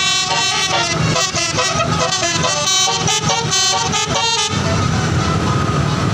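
Bus telolet horn, a multi-tone musical air horn, playing a quick run of changing notes. It stops about four and a half seconds in, leaving steady engine and road noise.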